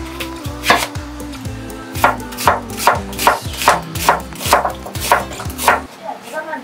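Chef's knife chopping on a wooden cutting board in steady, even strokes, about two to three a second, over background music that stops near the end.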